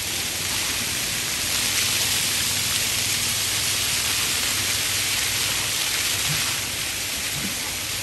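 Plaza ground-jet fountain: rows of water jets spurting up from the paving and splashing back down in a steady rushing spray, a little softer near the end.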